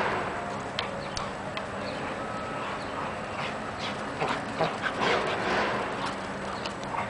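Two dogs play-fighting, with dog vocal sounds and scuffling, in irregular bursts.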